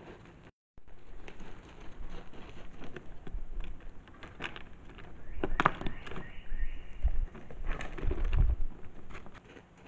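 Wild goats' (bezoar) hooves crunching and clattering on loose scree stones and gravel, an irregular patter of small clicks and knocks with heavier clatters in the second half. A faint high thin tone sounds briefly in the middle.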